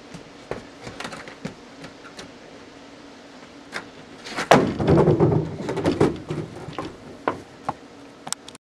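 Skateboard ollie off a plastic deck box: a loud clack about four and a half seconds in as the board hits the wooden deck, followed by about a second and a half of board and wheels clattering over the boards. Scattered light knocks and footsteps on the wooden deck before and after; the sound cuts off suddenly near the end.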